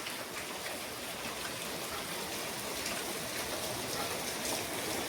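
Rain falling in a thunderstorm, a steady even hiss.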